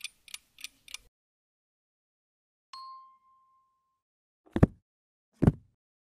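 Sound-effect library previews played one after another: a clock ticking about three times a second for the first second, a single bell ding about two and a half seconds in that rings out for over a second, then two heavy book-drop thuds about a second apart near the end.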